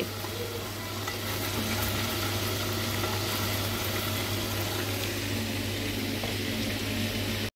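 Marinated chicken drumsticks sizzling steadily as they shallow-fry in oil in a pan, nearly cooked through.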